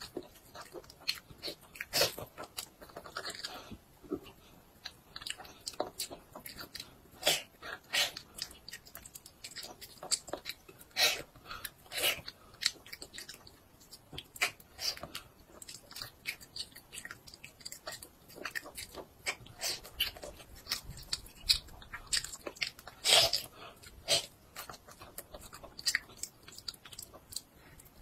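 A toddler biting and chewing a piece of cooked meat held in his hands, an irregular run of short chewing and biting clicks.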